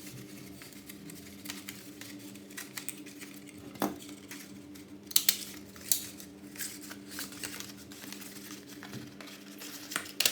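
A hand stapler snapping shut several times, driving staples through cardboard feathers into a card headband. The sharp clicks come a second or more apart, two of them close together, over a steady low hum.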